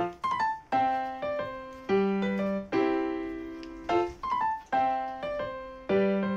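Background piano music: a gentle melody of struck notes that ring and fade, in short repeating phrases.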